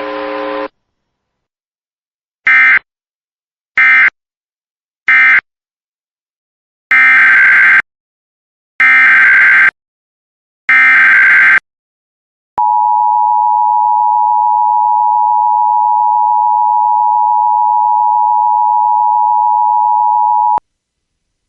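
Emergency Alert System data bursts: three short end-of-message bursts, then three longer header bursts of about a second each announcing the next alert. Then comes the EAS attention signal, a steady two-tone electronic tone held about eight seconds that cuts off suddenly.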